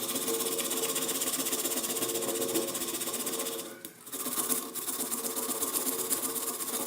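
Handheld electric power tool grinding the axe's rusty steel, running steadily with a fast, hissy whir. It drops away briefly about four seconds in, then resumes.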